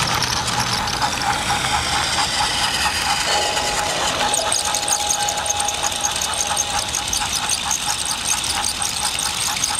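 Battery-powered Thomas TrackMaster toy engine running along plastic track, its small electric motor giving a steady whine over a regular rapid clicking. The whine steadies into a clear tone about three seconds in.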